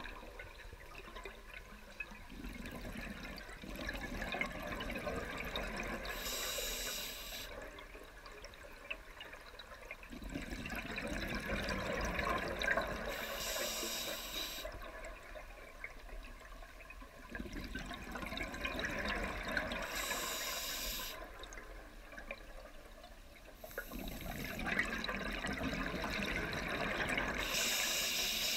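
Scuba diver breathing through a regulator underwater: a few seconds of gurgling exhaled bubbles, then a short hiss of inhaled air, repeating about every seven seconds, four breaths in all.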